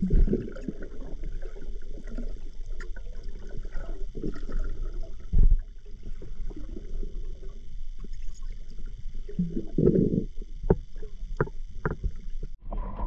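Muffled underwater sound picked up by a camera in a waterproof housing: low rumbles and irregular knocks from the diver moving with the speargun, with a heavier thump about five seconds in. A run of sharp clicks comes near the end over a faint steady hiss.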